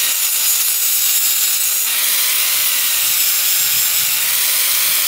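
Electric angle grinder with an abrasive disc grinding a rusty steel sprocket: a steady, loud hissing rasp of the disc on metal over the motor's whine, which dips and rises slightly in pitch every couple of seconds.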